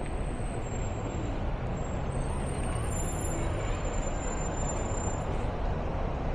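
City street traffic noise: a steady mix of passing vehicles' engines and tyres.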